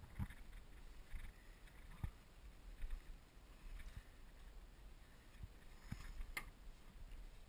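Faint rustling and scattered low knocks of handling and movement close to the microphone, with one sharp click about six seconds in.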